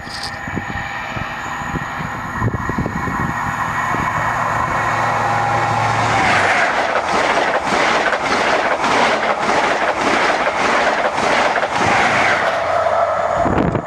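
An LNER InterCity 125 High Speed Train passing at speed. The diesel power car's engine hum builds as it approaches. From about six seconds in, the train rushes past with a rapid, regular beat of wheels over the track.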